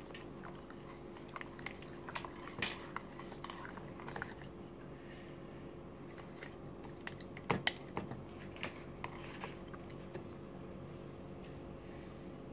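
A hand squishing and stirring runny slime in a plastic toy mixer bowl. Faint scattered wet squelches and small clicks, with a couple of sharper clicks just past halfway.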